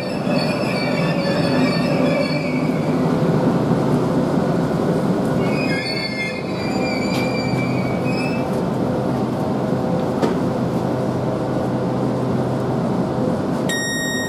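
Southeastern Class 395 Javelin electric multiple unit drawing into the platform and coming to a stand: a steady rumble and hum, with high squealing in the first few seconds and again about six seconds in. Just before the end, a repeating electronic beeping starts.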